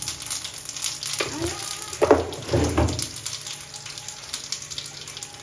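Cumin seeds sizzling and crackling in hot oil in a small pan, a tempering for the dish, with a few louder bumps between about one and three seconds in.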